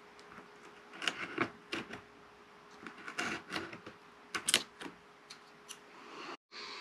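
Hobby knife blade cutting into the side of a model plane's fuselage: a run of short scratchy slicing strokes and clicks in irregular groups, over a faint steady hum.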